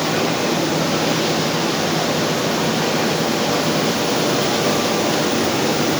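Steady industrial machinery noise: an even, loud hiss over a faint low hum, unchanging throughout.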